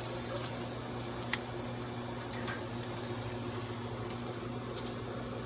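Metal tongs clicking a few times as grilled steaks are lifted off a gas grill's grate, over a steady low hum.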